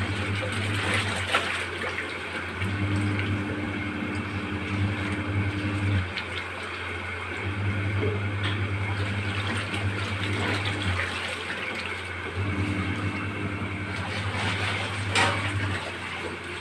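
Water running and pouring into a steel kitchen sink as rice is rinsed in a steel bowl and the wash water is drained off, with a low hum cutting in and out every few seconds. A single sharp metallic clink near the end.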